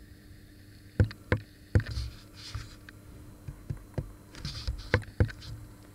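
An Amiga keyboard key in a test fixture being pressed and released by hand, giving about nine sharp, irregular clicks.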